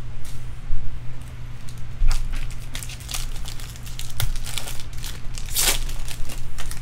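Foil wrapper of a jumbo trading-card pack torn open and crinkled by hand: a run of sharp crackles, the loudest a little before the end.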